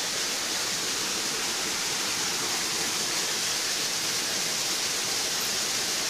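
Steady rushing of water from a small forest waterfall on a creek, an even hiss that does not change.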